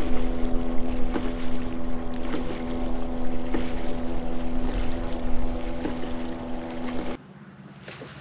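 Hobie Pro Angler 14 kayak under way across a choppy lake: a steady hum over rushing water, with wind on the microphone and the hull slapping through the chop about once a second. The sound cuts off sharply about seven seconds in, leaving only faint water lapping.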